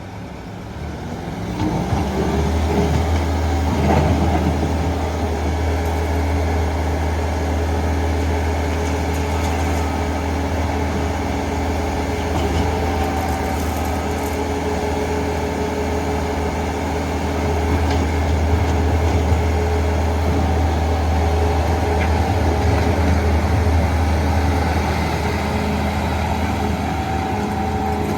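Bobcat T450 skid steer loader's diesel engine running steadily. It comes up in level over the first couple of seconds, then holds.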